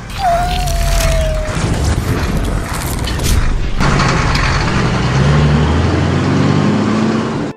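Cartoon sound effects of a truck's mounted gun folding away: mechanical clicking and clatter with a short falling whine. From about four seconds in, a truck engine revs as it drives off, its pitch climbing.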